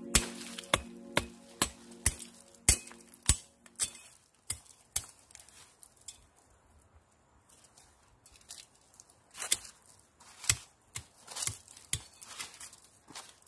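Machete blade chopping and scraping into stony hillside soil and weeds: sharp strikes about two a second, a pause of a few seconds, then a quicker run of strikes near the end. Background music fades out over the first few seconds.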